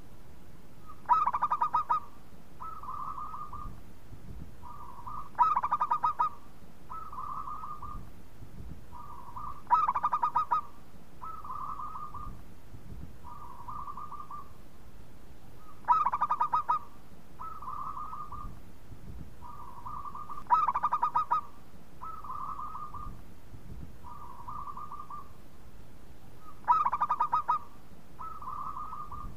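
Zebra dove (perkutut) cooing: six loud phrases, each a quick rattling run of coo notes, coming every four to six seconds, with softer single coos repeated in between.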